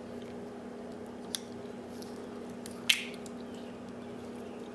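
Small metal clicks and ticks as a hex key is tried in a small screw in the padlock body, with two sharp clicks about a second and three seconds in, the second the loudest. A steady low hum runs underneath.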